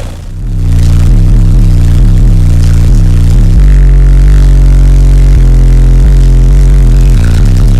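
Car audio subwoofers playing a bass-heavy track at extreme volume. Deep bass notes step up and down, with one long, very low note held for about two seconds midway.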